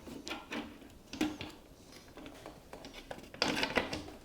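Plastic tower-fan base pieces being handled and fitted together: light knocks and clicks, then a louder scraping stretch near the end as a piece slides over another.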